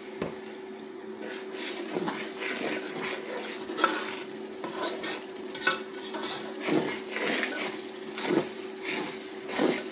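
Metal spoon stirring and scraping a spiced onion-and-tomato masala in an aluminium pot, with irregular clinks of the spoon against the pot over the sizzle of the masala frying, and a steady hum underneath.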